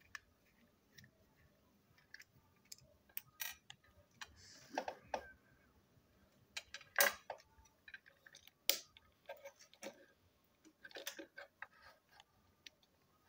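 Plastic parts of a toy train engine being handled and pulled apart: scattered clicks and knocks of plastic on plastic, with a short rustle about five seconds in and the sharpest clicks about seven and nine seconds in.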